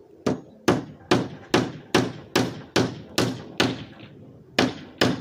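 Estwing hammer driving wire nails into wooden boards: about a dozen sharp, even blows at roughly two and a half a second, with a short pause about four seconds in.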